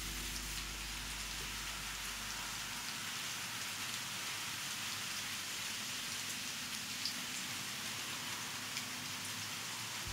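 Steady, even hiss like light rain, with scattered small drip-like ticks. The song's last low sustained notes fade out in the first few seconds.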